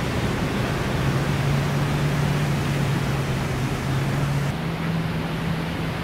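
Surf breaking and washing onto a sandy beach: a steady rushing noise, with a low steady drone underneath that shifts a little higher about four and a half seconds in.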